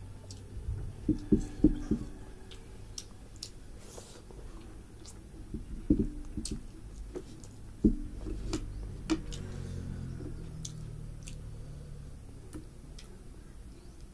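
A person chewing and eating rice and curry by hand close to the microphone: irregular mouth clicks and smacks, with louder clusters about a second in and again around six and eight seconds in.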